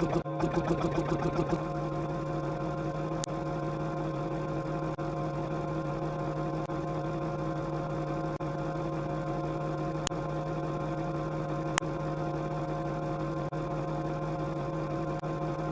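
Steady droning hum made of several held tones, pulsing rapidly for the first second and a half, then even, with three faint clicks along the way.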